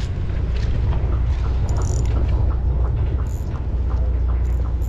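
Wind rumbling on the microphone, with a faint regular ticking about four times a second from about a second in.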